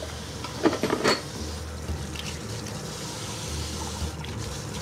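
Kitchen tap running steadily into the sink during washing up, with two brief knocks about a second in.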